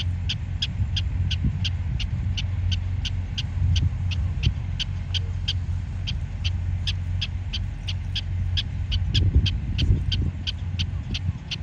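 Prairie dog giving its chirping alarm call over and over at an even pace of about three calls a second, an alarm raised at a dog close by. A steady low rumble runs underneath, with a couple of low thumps about nine to ten seconds in.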